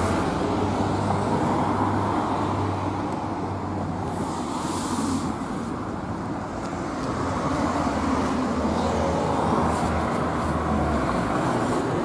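Low, steady engine rumble with outdoor street noise, with a brief hiss about four seconds in.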